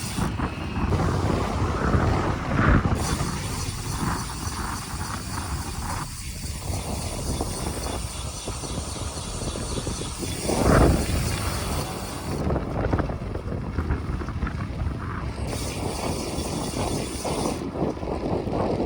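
Road bike being ridden, with wind rushing over the microphone and tyre and road noise. The wind swells louder twice, and the sound changes abruptly several times.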